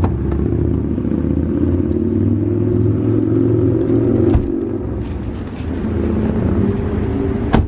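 Car driving: a steady low engine and road rumble, with a couple of brief knocks.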